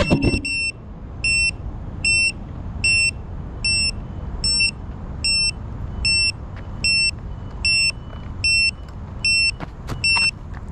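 Small electronic buzzer beeping at an even pace, one short high beep about every three-quarters of a second, over a low outdoor rumble. A few sharp knocks near the end.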